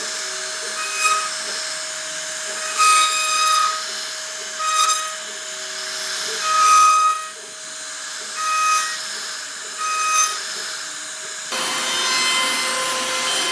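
CNC router spindle whining as its bit carves wood, with a steady tone and a surge in pitch and level every second or two as the bit bites in. Near the end the pitch shifts suddenly to a new steady whine.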